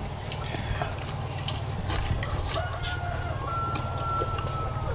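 A rooster crowing about halfway through, ending in a long, slightly falling held note, over a steady low hum. Spoons and bowls clink now and then.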